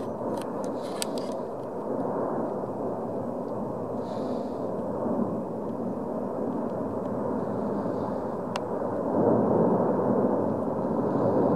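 Erupting La Palma volcanic vent giving a steady rushing rumble as it throws up a fountain of lava spatter, swelling louder about nine seconds in. A few sharp clicks stand out, one near the start and one a little after eight seconds.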